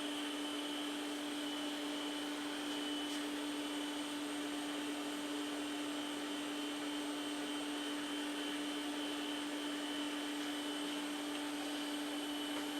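386 PC running with its cooling fan and hard drives spinning: a steady hum with a fainter high whine above it.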